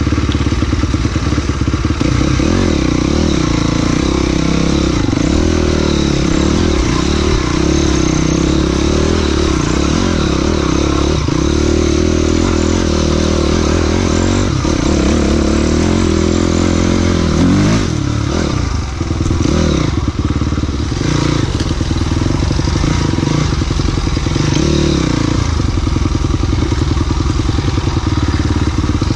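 Honda CRF dirt bike's four-stroke engine revving up and down over and over as it rides a rough trail, with clatter and thuds from stones and the chassis.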